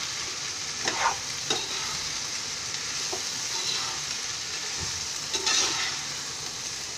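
Sliced ivy gourd sizzling in hot oil in a non-stick pan as it is stirred with a metal spatula, which scrapes against the pan a few times, loudest about five and a half seconds in. The gourd is being sautéed in oil alone, before any water is added.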